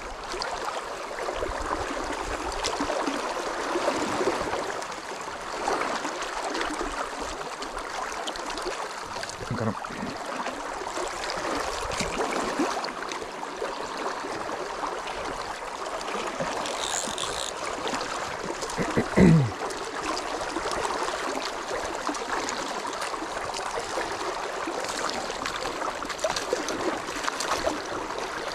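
Shallow, fast river riffle rushing steadily around the angler's legs, with one brief low thump about two-thirds of the way through.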